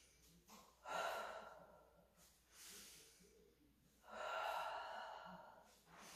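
A woman breathing audibly while exercising: two soft breaths, one about a second in and a longer one about four seconds in, following a paced inhale-to-reach, exhale-to-hug-in pattern.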